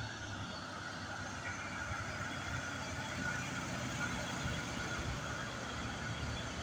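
Mitsubishi Fuso cargo truck's diesel engine pulling slowly up a steep grade, a steady low rumble growing gradually louder as it approaches.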